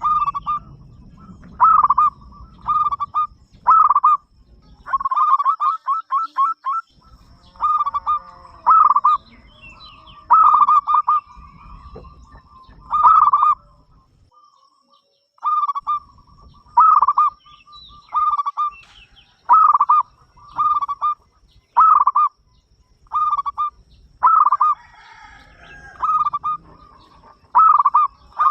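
Zebra dove (perkutut) cooing: phrases of short ringing notes, some in quick stuttering runs, repeated over and over with short pauses between phrases.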